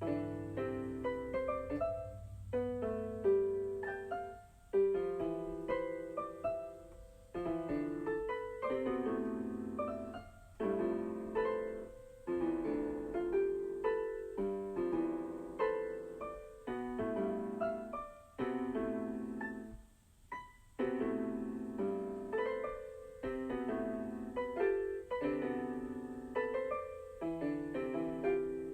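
Piano-style keyboard music: a slow melody of single notes and chords played in phrases, each note struck and left to fade.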